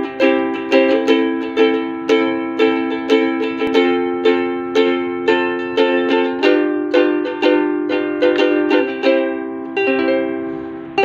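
Carlos soprano ukulele, with a maple top and mahogany back and sides, strummed in a steady rhythm of chords, about two strums a second. The chord changes about two-thirds of the way through.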